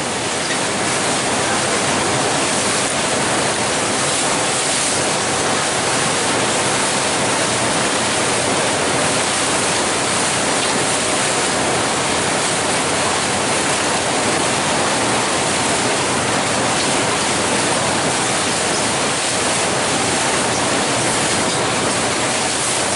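Steady, even rushing noise of wind and water around a moving glacier cruise boat, heard on its open deck.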